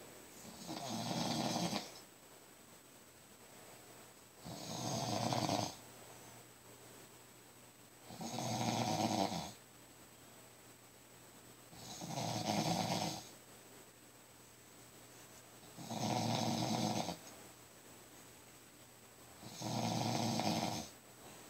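A sleeping man snoring: six long, rasping snores at an even pace, about one every four seconds, with quiet breathing between.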